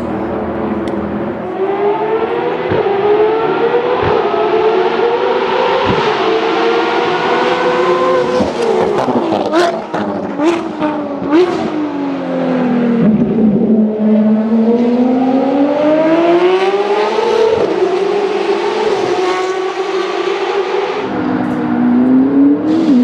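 A track hypercar's engine running hard on a race circuit. Its revs climb, then it lifts off about halfway through with a few sharp cracks. The pitch drops low and rises again steadily as it accelerates, with another brief lift near the end.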